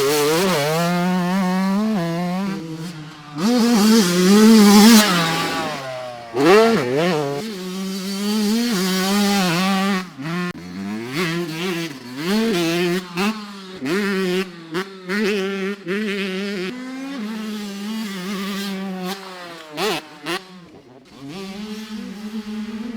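Yamaha YZ125 two-stroke dirt bike engine, on its stock exhaust, being ridden hard around a motocross track. The revs repeatedly climb and fall as the throttle is opened and chopped through the gears, loudest a few seconds in.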